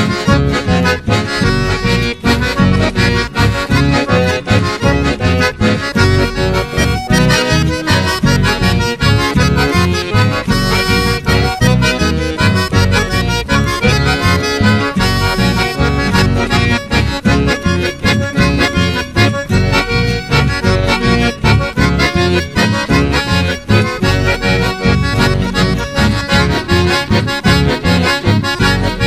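Chamamé music with the accordion leading the tune over a steady, driving rhythm and bass.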